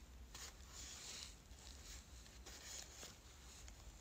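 Near silence: faint rustling of small plush and fabric wallets being handled close to the phone's microphone, in two brief patches, over a low steady hum.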